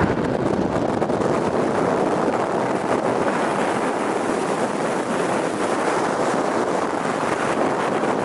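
Strong blizzard wind blowing, a loud, dense rushing noise that holds steady without gusts or breaks.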